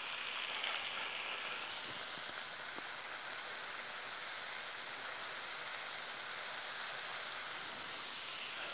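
Ground-beef smash burger patties searing on a hot Blackstone flat-top griddle: a steady, even sizzle.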